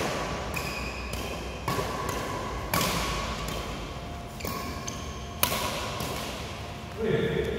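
Badminton rackets striking a shuttlecock in a rally: about five sharp hits, roughly a second apart, each echoing briefly in the hall.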